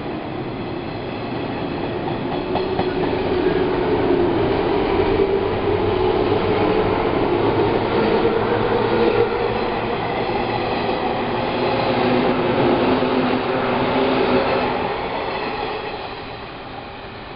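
185 series electric train departing, its cars running close past with a steady hum. The sound fades about 15 seconds in as the last car goes by.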